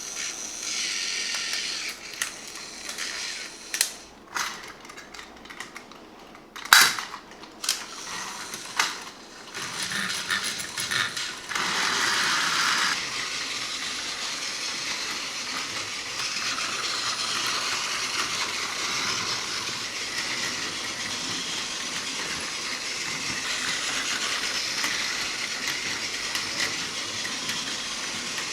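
Plastic clicks and knocks of toy parts being handled, then a steady whirring hiss from about halfway through: a battery-powered Plarail toy train running on plastic track.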